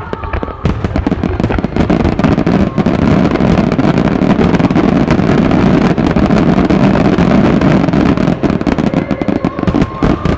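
Extra-large starmine fireworks barrage: shells launching and bursting in rapid, overlapping volleys, a dense run of reports that builds about a second in and thins out near the end.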